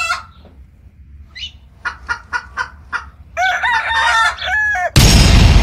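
A series of short clucking calls, then a longer crowing call like a rooster's, followed about five seconds in by a sudden loud, deep rumble.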